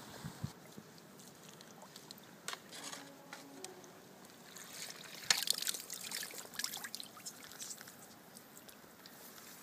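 Faint trickling and light splashing of lake water at the landing net as a released carp swims off. Scattered small drips, with a cluster of sharper splashes and crackles about five seconds in.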